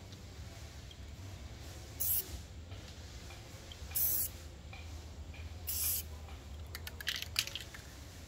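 Aerosol spray paint can spraying in three short bursts about two seconds apart, followed by a few quick clicks and rattles near the end.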